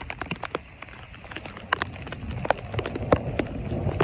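Heavy rain falling, with many sharp, irregular drop hits close to the microphone.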